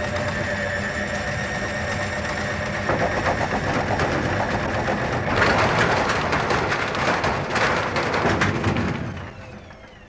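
Washing machine running with its concrete counterweight blocks removed: a steady motor whine, then heavy rattling and knocking from about five seconds in as the unbalanced drum shakes the machine, fading away near the end. With no concrete to damp it, the machine vibrates excessively.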